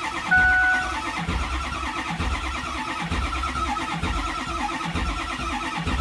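Ford 6.0-liter Power Stroke V8 diesel cranking steadily on the starter without firing, with a dash warning chime sounding briefly near the start. No oil pressure builds while it cranks, so the oil-fired injectors cannot fire: a crank-no-start.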